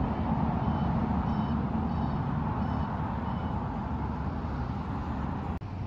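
Outdoor traffic ambience: a steady low rumble of road traffic, with a few faint high chirps in the first few seconds. There is a click and a brief dropout near the end.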